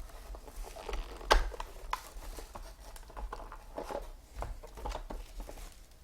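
Trading cards and their plastic holders being handled: soft rustling and light clicks and taps, with one sharper tap about a second in.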